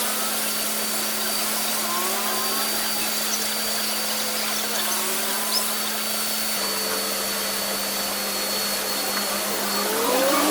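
Electric power tool motor running steadily with a hum and a thin high whine; its pitch drops slightly about six and a half seconds in.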